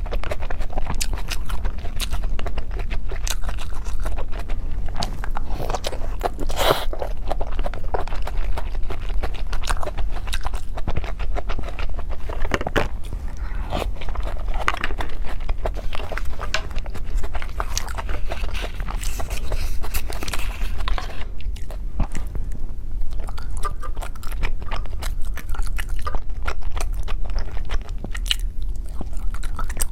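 Close-miked chewing and mouth sounds of someone eating cake: a steady run of irregular wet smacks and clicks over a low hum.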